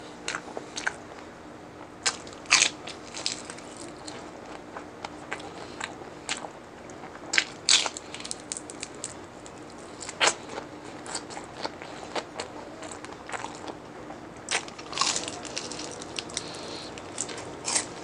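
Close-up crunching and chewing of crispy deep-fried pork mesentery (chicharon bulaklak): sharp, irregular crunches from bites and chewing, several of them much louder than the rest.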